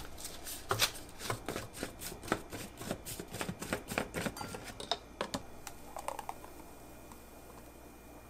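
Quick run of plastic clicks, about five a second for some five seconds, as the Ninja Fit's plastic blade assembly is twisted off the blender cup.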